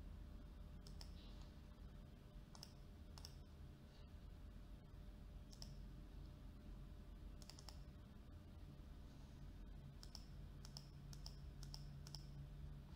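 Faint computer mouse clicks: scattered single and double clicks, then a quicker run of about five near the end, over a steady low hum.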